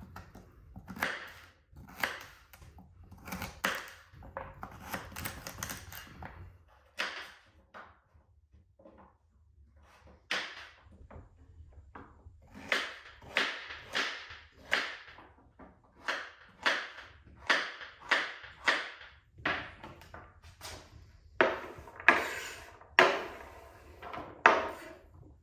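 A knife chopping on a wooden cutting board: about twenty short, sharp knocks. They are uneven at first, then settle into a steady chopping rhythm of about one and a half strokes a second in the second half.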